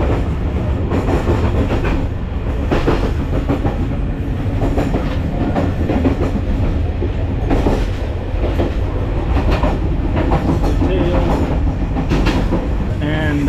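Moving TAZARA passenger train heard from inside the carriage: a steady low rumble with an irregular clatter of knocks and rattles from the wheels and coachwork.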